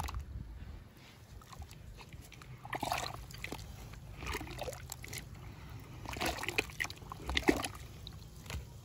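A hand sloshing and splashing in muddy water at the bottom of a dug-out hole: a couple of short splashes, then a longer run of sloshing near the end.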